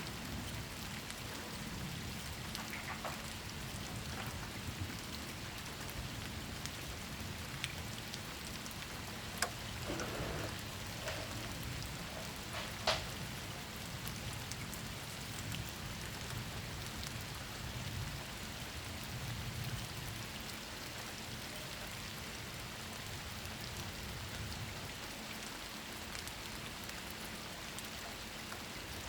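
Steady rain falling on surfaces, with a low rumble underneath and occasional louder single drops or drips.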